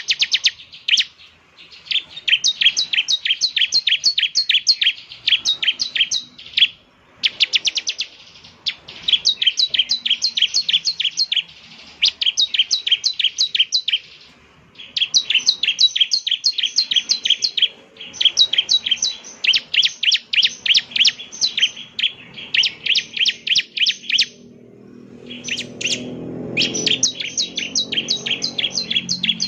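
Bar-winged prinia (ciblek) singing: fast runs of sharp, repeated chirping notes, each run one to three seconds long with short breaks between. A faint low rumble sits underneath in the last few seconds.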